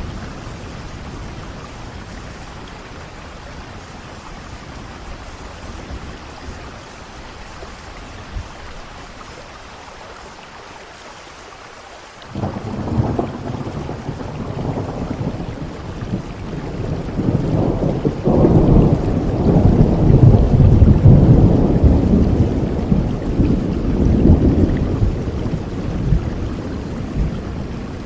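Steady rain falling, with a long roll of thunder that starts suddenly about twelve seconds in, grows louder, and slowly fades toward the end.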